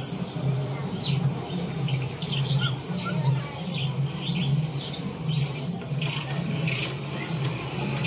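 Bird chirps and calls, many short quick downward-sweeping notes in quick succession, over a steady low hum.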